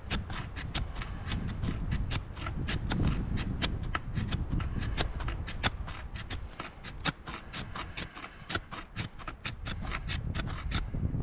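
Knife blade scraping along the frame of a Canadian military snowshoe, said to be magnesium, in quick short strokes about four or five a second, shaving off fine flakes for fire starter. The scraping stops just before the end.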